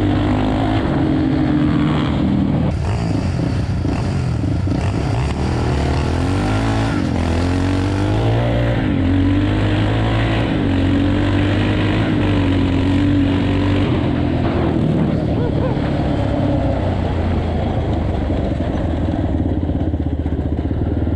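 Quad ATV engine running hard as the quad rides along a dirt track, its pitch rising and falling with the throttle.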